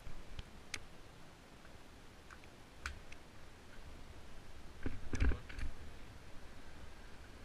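A few scattered sharp clicks and light knocks, with a short cluster of knocks about five seconds in, over a faint low rumble.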